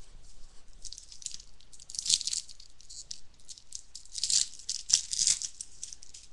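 Crinkling and rustling of a foil trading-card pack wrapper being handled and torn open, in irregular crackly bursts, loudest about two seconds in and again around four to five seconds in.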